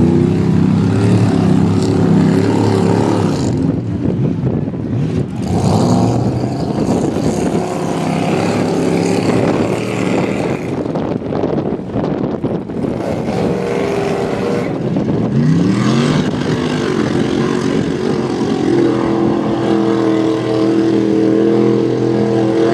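Mud-bog vehicle's engine running hard at high revs, its pitch rising and falling with the throttle, with a sharp climb in revs a little past the middle.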